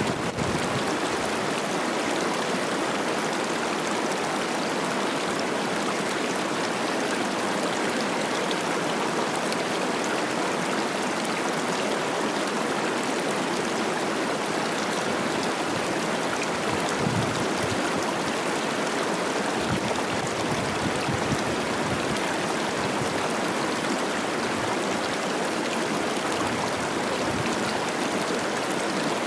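Cache la Poudre River running high with spring snowmelt, its water rushing and babbling steadily over rocks.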